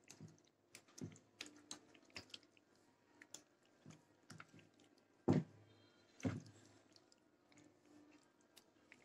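Hand squishing and kneading raw chicken pieces in a wet yogurt marinade in a pan: faint, irregular squelches and clicks, with two louder ones about five and six seconds in.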